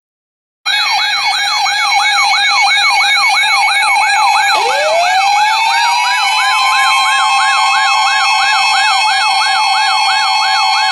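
Siren alert tone starting after a brief silence: a fast yelp sweeping up and down about two and a half times a second over steady tones. About four and a half seconds in, a second siren tone winds up from low and holds steady.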